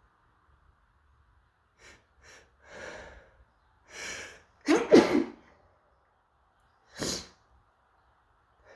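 A person sneezing. A few short breaths build up over about three seconds, then comes one loud sneeze about five seconds in, followed by one more short breath about two seconds later.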